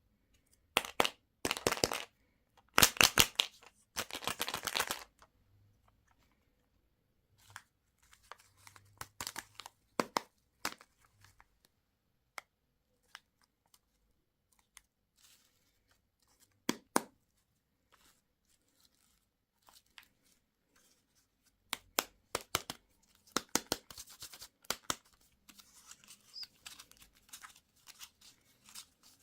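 Candy wrappers being torn open and crinkled by hand, in loud tearing bursts near the start and again near the end, with softer crinkles in between.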